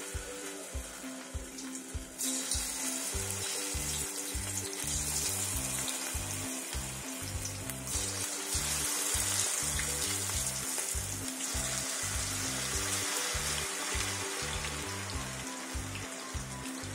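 Raw-jackfruit kababs deep-frying in hot oil, a steady sizzle. The sizzle grows louder about two seconds in and again about eight seconds in, as more pieces go into the oil.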